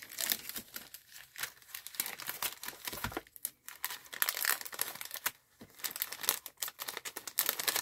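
Clear cellophane bag crinkling in quick, irregular crackles as a small paper milk-carton box is slid into it by hand.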